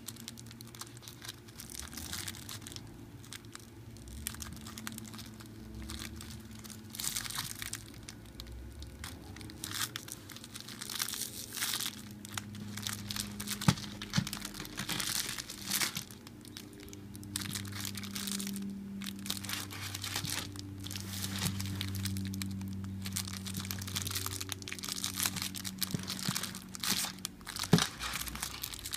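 Clear plastic wrappers crinkling in irregular bursts as hands handle and squeeze bagged foam squishies, with an occasional sharp click.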